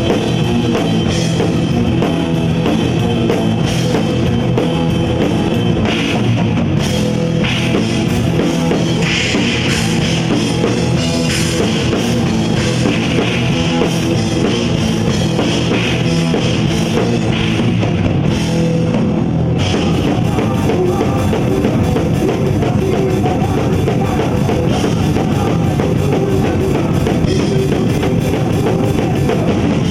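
Rock band playing at full volume, the drum kit to the fore over sustained pitched instruments; the music changes character about two-thirds of the way through.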